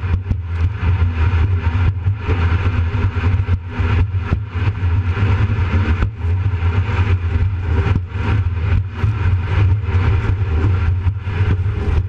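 Jet boat running at speed across choppy lake water: a steady, loud low engine drone under a constant rush of water and wind. Irregular sharp knocks come through it as the hull hits the waves.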